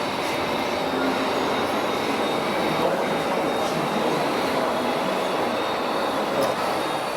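Small electric motors and gearboxes of RC model vehicles running, a steady whirring rumble with a faint high whine.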